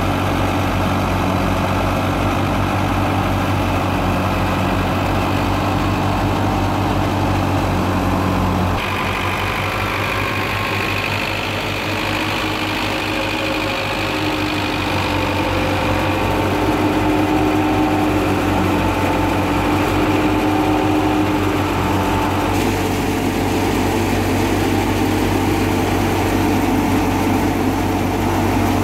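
Belarus 510 tractor's diesel engine running steadily under load, belt-driving a wheat thresher whose drum and pulleys whir along with it.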